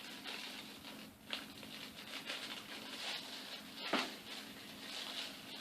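Plastic bag crinkling and rustling as a metal mounting rod and hardware are pulled out and handled, with one sharper click about four seconds in.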